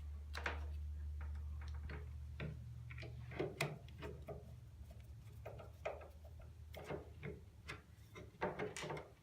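Irregular small clicks and knocks of screws and a power strip being handled, over a low hum that fades away.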